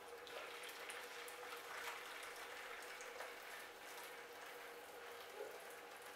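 Hot water poured from a pan of boiled acorns into a jug, a faint, steady trickle of liquid: draining off the first boil's water, dark with leached tannins.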